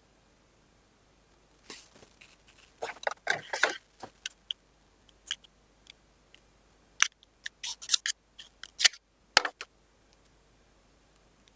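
Hands handling a phone and its packaging: two bursts of scraping, rustling and sharp clicks, with a few single ticks between them.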